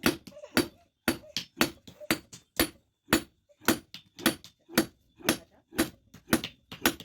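A blacksmith's hand hammer striking steel on an anvil in a steady rhythm, about two heavy blows a second with lighter taps between: forging leaf-spring steel into a chopper.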